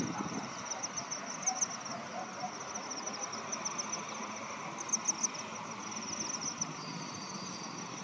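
Natural outdoor ambience: a continuous run of rapid, high-pitched chirping over a steady hiss, with a few louder clusters of chirps.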